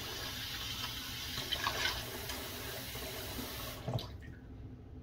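Water running from a bathroom sink tap while a face is splashed with water, with a few brief splashes. The tap shuts off suddenly about four seconds in.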